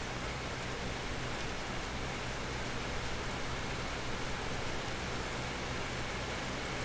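Steady rain falling, a continuous even patter with no breaks.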